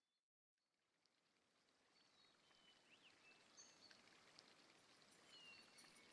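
Near silence: a brief dead gap, then faint outdoor ambience fading in with a few faint, high bird-like chirps.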